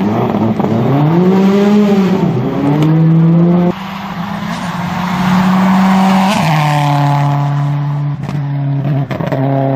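Rally car engine revving hard under acceleration, the pitch climbing, dropping at a gear change and climbing again. It cuts off abruptly a little over a third of the way in to another rally car's engine, held at steadier revs with one shift in pitch near the middle.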